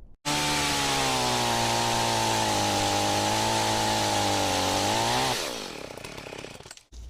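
Chainsaw running at full throttle, a steady high engine note that starts abruptly. Near the end the revs fall away as the throttle is let off.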